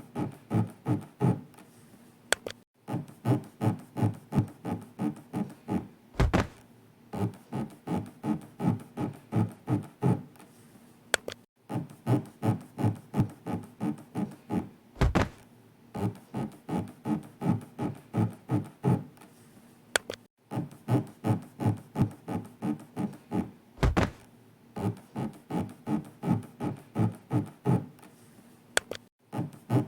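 Looped rubbing sound effect in quick, even strokes, about three a second, standing for an elevator floor scraping along the body's inner walls as it rises and falls; it paces a slow elevator-breathing exercise. Three times, about nine seconds apart, a single heavy thunk cuts in, and the strokes pause briefly between these thunks.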